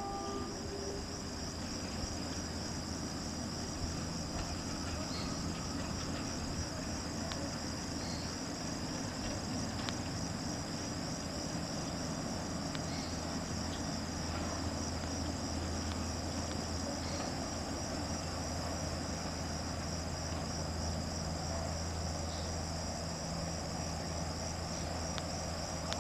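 Crickets chirping steadily in a fast, even pulse, over a low steady hum.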